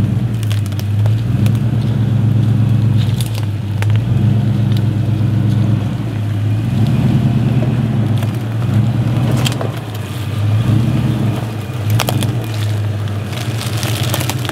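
Toyota Land Cruiser 100 series engine pulling at low revs as the 4x4 crawls up a rocky track, its note swelling and easing several times. Rocks crack and crunch under the tyres now and then.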